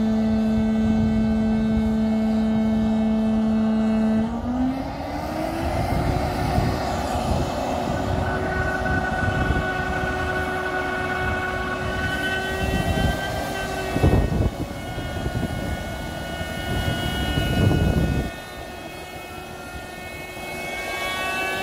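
Northrop F-5 Tiger II's twin turbojet engines running on the ramp: a steady whine steps up in pitch about four seconds in, and higher whining tones slide upward near the end, over a constant rushing noise. There are two loud low surges around the middle.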